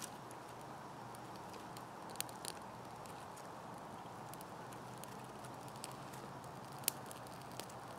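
A newly lit fire of birch bark and twigs crackling faintly: a handful of sharp snaps over a steady low hiss, the loudest about seven seconds in.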